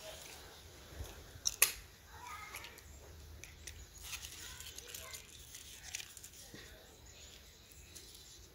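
Snap-setting pliers clicking sharply twice about a second and a half in, followed by light rustling and handling of a stiff vinyl billboard tarp.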